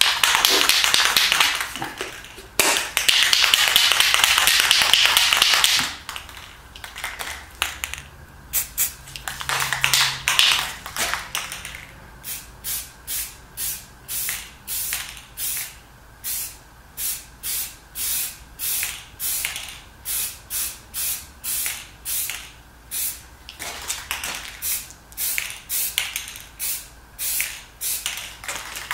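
Aerosol can of Rust-Oleum 2X Ultra Cover flat white primer spraying: two long hisses, then a shorter one about ten seconds in, followed by a steady run of short, evenly spaced pulses, about three every two seconds.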